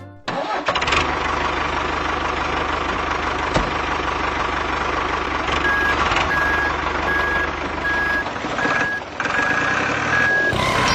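An engine starting and running steadily with a fast, even pulse. About halfway through, a series of short, evenly spaced reversing-style beeps, about two a second, sounds over it for several seconds.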